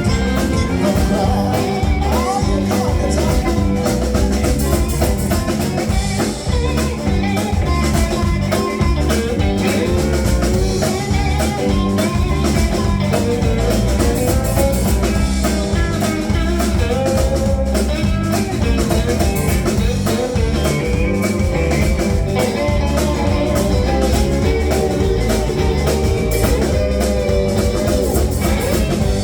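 Blues band playing live, with electric guitar lines over bass and a drum kit.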